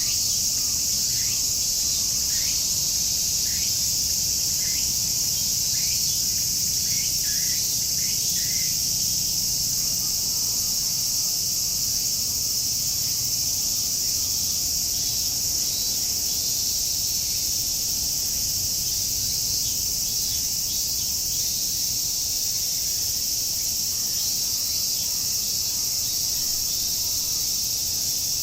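A chorus of cicadas making a steady, high-pitched drone. Over it, for the first nine seconds or so, a bird gives a run of short, falling call notes repeated about once a second.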